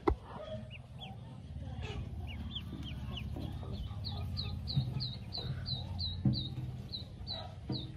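Pekin ducklings peeping: short high cheeps, each dropping in pitch, scattered at first and then coming steadily about three a second from about halfway through, over a low rumble. A sharp knock sounds right at the start.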